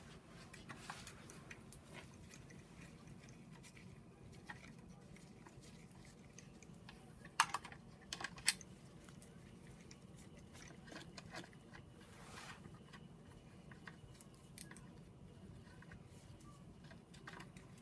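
Hand tools working bolts out of an engine's oil pump: faint scattered clicks of a ratchet and Torx socket, with two sharp metal clinks about a second apart midway.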